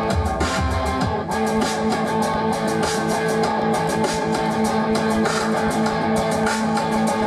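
A rock band playing an instrumental passage, led by strummed guitars over bass guitar, with a steady even rhythm.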